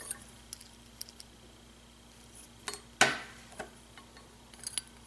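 Small metallic clicks and clinks of a lock's plug and a plug follower being handled and worked in the lock body, with one sharper, ringing clink about three seconds in.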